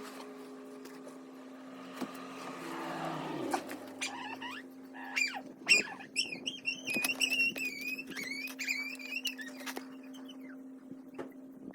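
A bird singing, a quick series of warbling, chirping calls that starts about four seconds in and stops near the end, over a steady low hum, with a few sharp clicks.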